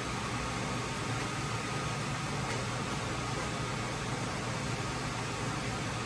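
Steady mechanical hum under an even hiss, unchanging throughout, with no clicks or strikes.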